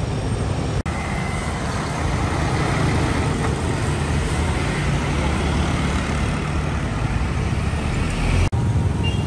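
Tanker truck's diesel engine running as it drives past in busy street traffic, a steady low drone mixed with the noise of cars and motorbikes. The sound drops out for an instant twice, about a second in and near the end.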